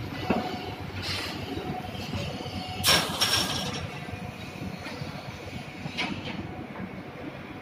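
Shipyard work-site din in a dry dock: a steady noisy background with a few short knocks, and one loud harsh metallic noise lasting under a second about three seconds in.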